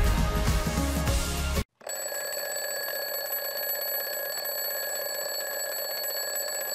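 Upbeat background music cuts off about one and a half seconds in, and after a brief gap a twin-bell alarm clock rings steadily, signalling that the break timer has run out.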